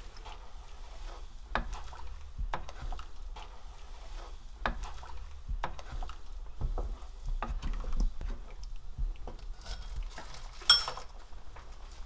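Spatula stirring rice cake slices and oysters in a metal pot of boiling soup: scattered light knocks and scrapes against the pot, with one sharper clink that rings briefly near the end.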